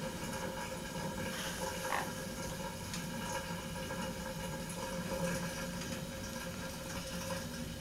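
A steady room hum, with a few faint short scratches and clicks from a sun conure's claws and beak as it climbs on an oven handle and tea towel.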